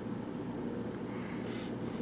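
Steady low background hum: room tone, with a faint rustle near the end.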